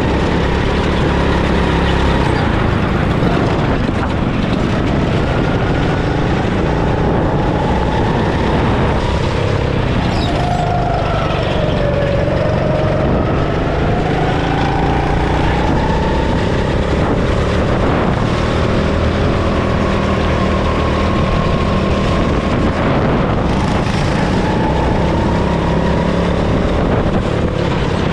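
Go-kart engine running under load through a lap, its pitch rising and falling again and again with the throttle through the corners.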